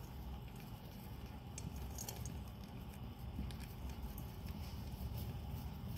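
Faint, scattered small clicks and rustles from hamsters moving in wood-shaving bedding, over a low steady rumble.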